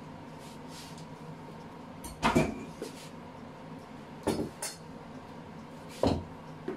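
Kitchen utensils knocking against a bowl: three short clatters about two seconds apart, over a faint steady hum.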